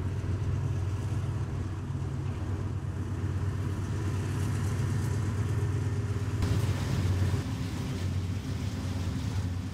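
Diesel freight locomotives running as a train goes by: a steady, loud low engine drone. About six and a half seconds in, a brighter hiss of the passing train joins it.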